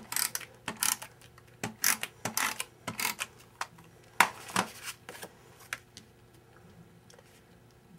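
Handheld tape-runner adhesive dispenser being drawn in a series of short strokes across the back of a cardstock mat, stopping about five seconds in, followed by faint handling of paper.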